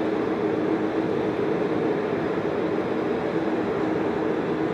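Airbus A340 jet engines running at low power on the ground: a steady rush of noise with a steady low hum, unchanging throughout.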